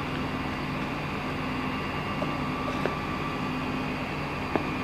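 Steady low hum and hiss of room tone, with two faint clicks, about halfway through and again near the end.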